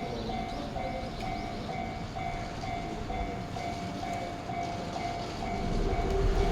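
Japanese level-crossing alarm with the JR-standard electronic bell, ringing steadily at about two dings a second. A Chichibu Railway 6000 series train's low rumble swells near the end as it reaches the crossing.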